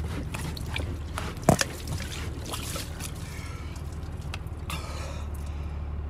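Drinking from an overfilled plastic cup: slurps and liquid spilling and dripping, with a sharp knock about a second and a half in, over a steady low hum in the truck cab.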